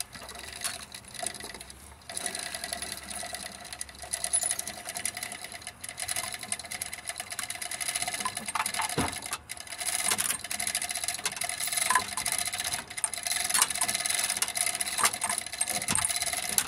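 Manual chain hoist being worked: fast, continuous ratchet clicking with the load chain rattling through it as it moves the hanging engine.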